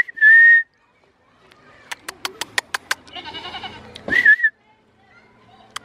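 A person whistles a short, loud high note. About two seconds in comes a quick run of about seven sharp clicks, then a goat bleats, and a second, wavering whistle follows at about four seconds.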